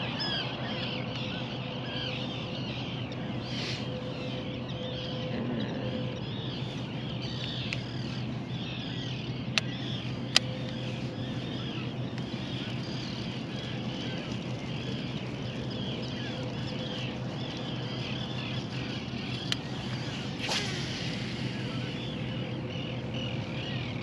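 Many birds calling at once, a dense overlapping chorus of short chirps, over a steady low hum. A few sharp clicks stand out: two close together about ten seconds in, and two more around twenty seconds.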